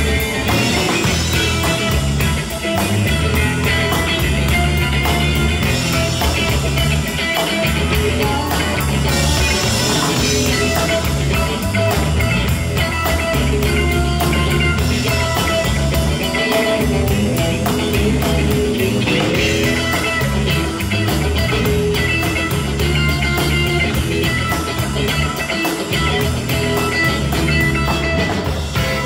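Live rock band playing: electric guitar over bass and drums, with a steady cymbal beat.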